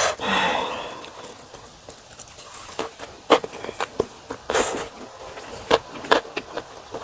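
Close-miked chewing of a mouthful of kimbap, with wet mouth clicks and smacks coming irregularly. A short breathy hiss comes first.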